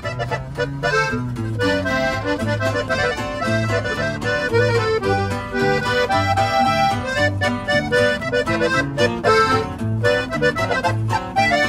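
Background music: a melody over a bass line pulsing on a steady beat.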